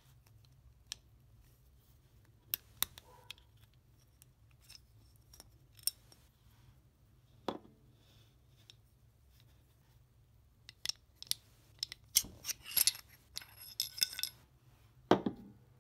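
Parts of a Smith & Wesson M&P Shield 9mm pistol being handled during takedown: scattered light metallic clicks, then a quick flurry of clicks and scraping toward the end, with one sharp, loudest click just before the end.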